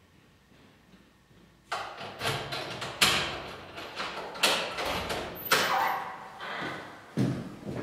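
A run of irregular knocks and thuds, one every half second to a second, starting suddenly about two seconds in after near silence.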